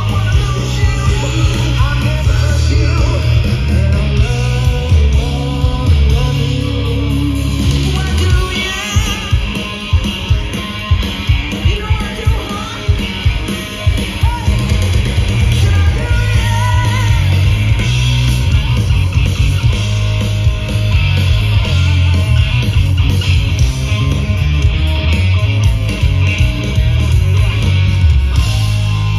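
Rock band playing live through a festival PA: electric guitars, bass and drums with lead vocals. About eight seconds in, the steady bass drops away for a stretch led by loud drum hits, then the full band comes back in.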